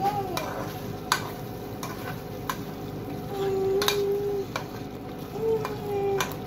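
A metal spoon stirring and scraping a thick meat curry in a non-stick pot, with sharp clinks against the pot, over a steady sizzle of the sauce cooking down on the gas flame. A few short, wavering held tones sound now and then, the longest about halfway through.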